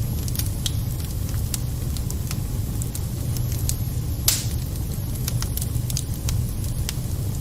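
Wood fire burning in a fireplace, crackling with scattered sharp pops over a steady low rumble, with one louder pop about four seconds in.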